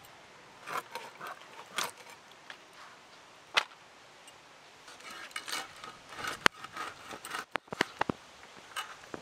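Hilsa fish being cut on a boti blade: scattered short knocks and crunching clicks as the blade goes through flesh and bone and the pieces are set down on a banana leaf. There is a loud knock about a third of the way in and a quick run of several clicks near the end.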